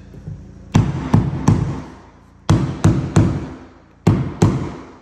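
A replacement engineered hardwood board being knocked down into its glued slot, eight sharp blows in quick groups of three, three and two.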